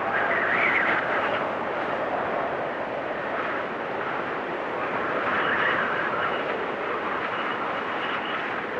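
Wind storm blowing hard, with gusts swelling about half a second in and again about halfway through, and a faint high whistling over the rushing noise.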